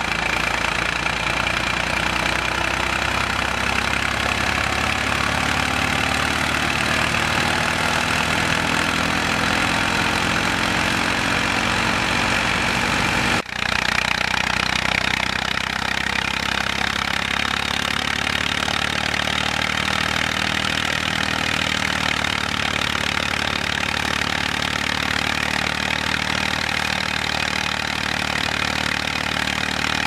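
Massey Ferguson tractor engine running steadily while driving a wheat thresher, the thresher's drum and pulleys adding a dense, steady mechanical clatter and whir. The sound breaks off briefly about halfway through.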